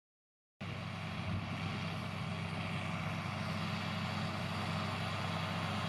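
John Deere 6620 tractor's six-cylinder diesel engine running steadily as it pulls a seed planter, growing slowly louder. It starts about half a second in, after a brief silence.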